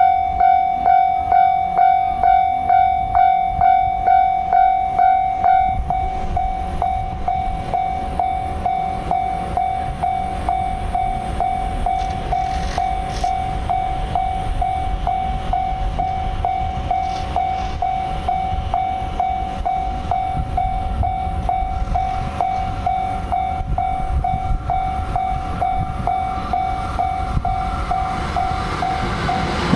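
Japanese level-crossing warning bell ringing its 'kan-kan' tone, about two to three strikes a second. From about six seconds in, a train rumbles past beneath it.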